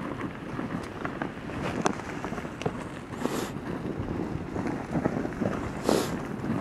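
Hooves of a bison herd running across snow: many irregular soft thuds over a steady rush of wind on the microphone, with two short breathy hisses about three and six seconds in.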